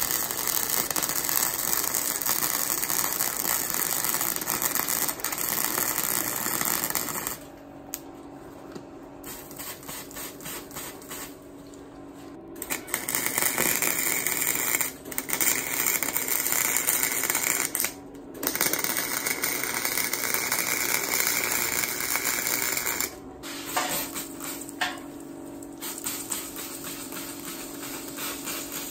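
MIG welder with its power turned down, crackling as it welds a caster wheel's mount to steel square tube. It runs in long stretches: one at the start, a pause of about five seconds, then another long run broken twice by brief stops.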